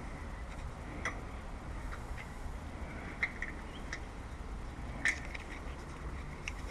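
Scattered light clicks and taps, about one a second at irregular spacing, over a steady low background hum.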